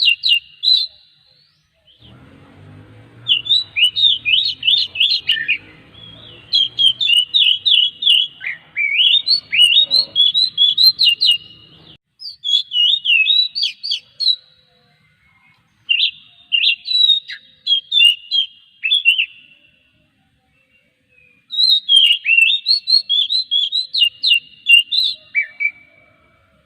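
Oriental magpie-robin (kacer) singing: phrases of a few seconds of quick, varied whistled notes, broken by short pauses. A faint low hum runs under the song for the first ten seconds or so.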